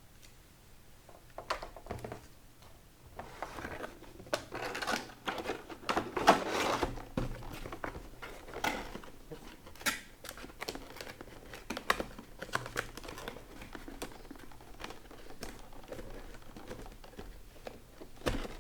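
Plastic packaging crinkling and rustling while small earphone parts and cables are handled, with scattered small clicks and taps. The rustling is busiest about four to seven seconds in.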